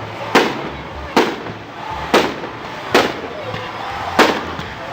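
Fireworks going off: five sharp bangs about a second apart, with faint voices between them.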